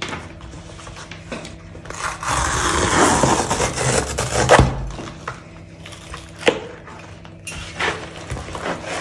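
Cardboard shipping package being handled and opened: a few seconds of scraping, rustling noise, with a knock partway through, a sharp click a little later and a shorter stretch of rustling near the end.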